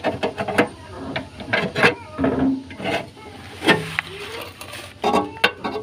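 Irregular metallic clinks and knocks of a wrench working the thin steel splash shield next to a Suzuki Carry's tie rod, bending the shield up and away from the tie rod it was rubbing on.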